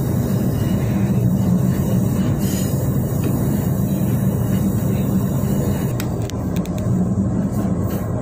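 Pingxi Line diesel railcar running along the track, heard from inside at the rear of the train: a steady low rumble of engine and wheels, with a few light clicks about six seconds in.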